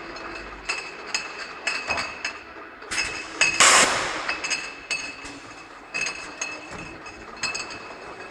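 Automatic beer-bottling triblock running: glass bottles clinking against each other and the machine, irregularly about twice a second, as the feed screw carries them along. About three and a half seconds in comes a loud hiss of air, the loudest sound.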